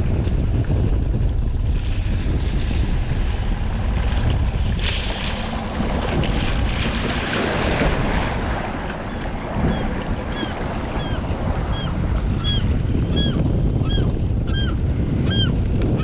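Wind buffeting the microphone on an open skiff, with water noise beneath. From about ten seconds in, a string of short, high chirps repeats about twice a second.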